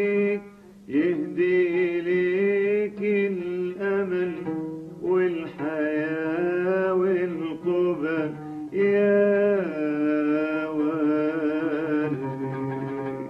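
Arabic-style singing with long held, ornamented notes that slide and waver in pitch, over an oud.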